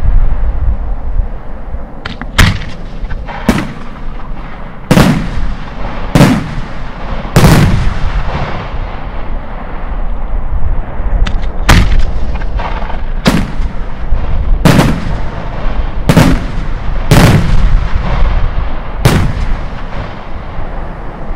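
Italian aerial firework shells going off in succession: about a dozen sharp, loud bangs one to two seconds apart, each trailing off in an echo.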